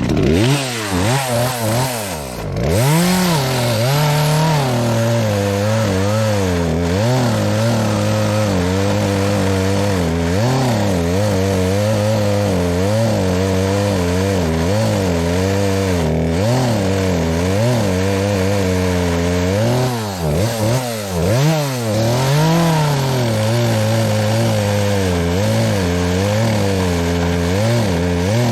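Two-stroke chainsaw running under load, cutting into a tree trunk. Its pitch keeps dipping and picking back up as the cut loads the engine, bogging hardest twice: a few seconds in and about two-thirds of the way through. The owner admits the chain could have been sharper.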